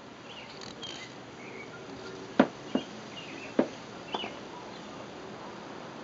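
Four sharp taps or knocks about two and a half to four seconds in, over a steady background hiss with faint, scattered high chirps.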